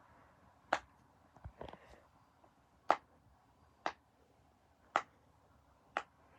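A run of sharp little clicks about a second apart, six in all with one softer double click, from a plastic fidget toy being pressed and handled.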